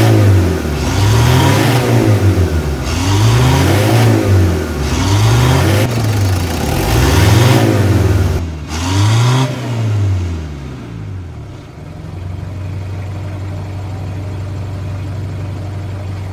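Mitsubishi 4D56 2.5-litre four-cylinder diesel engine revved up and down by hand at the injection pump lever, about one blip every second and a half. About ten seconds in it settles to a steady idle.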